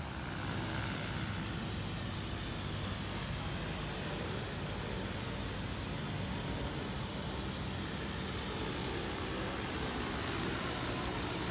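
Large multirotor spray drone hovering close by, its propellers giving a steady, unbroken whir.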